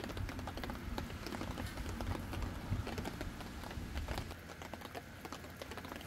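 Pork belly sizzling on a black griddle pan, faint, with many small irregular crackles as the fat spits.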